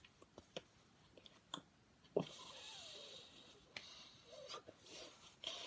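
A person breathing out long and breathily through pursed lips, a soft wheezy hiss starting about two seconds in, after a few small clicks.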